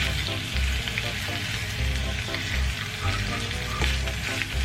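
Background music with a light melody and a steady low beat, over a constant hiss of noise.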